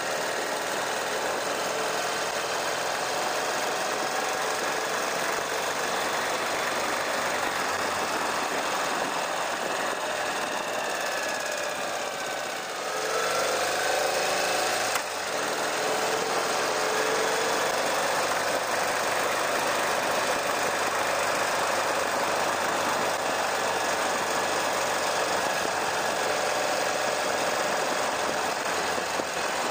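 URAL sidecar motorcycle's air-cooled flat-twin engine running steadily at road speed over a constant rush of wind and road noise. About halfway through, the engine note drops, then climbs again and steps up sharply as the bike picks up speed.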